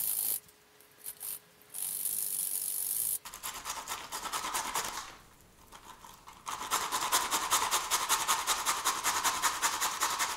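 Beetroot being grated on a metal box grater: quick rasping strokes, about five a second, with a short pause partway through.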